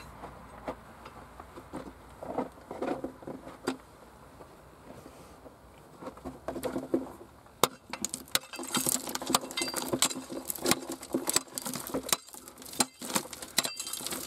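Small hand pick knocking and scraping stones out of a tunnel ceiling of clay and stone, with loosened bits of earth and grit pattering down. Scattered knocks at first, then from about eight seconds in a fast, dense run of knocking and scraping.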